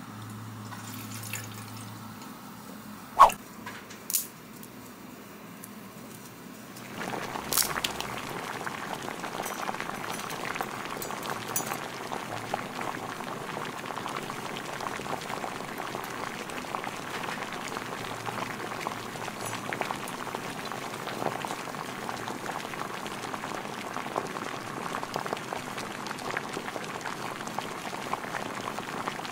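Water poured into a small metal pot, and two sharp knocks about three and four seconds in. From about seven seconds on, water bubbles steadily in the pot.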